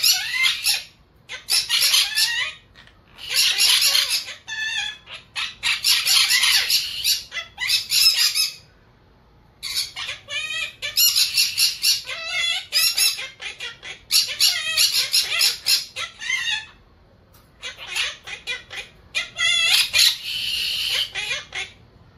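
Monk parakeet chattering and squawking in bursts of one to four seconds with short pauses between. The calls are high and wavering.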